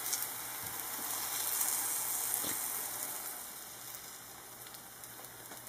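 Banana slices frying in coconut oil and a bubbling honey-cinnamon glaze, sizzling steadily. The sizzle grows fainter after about three seconds.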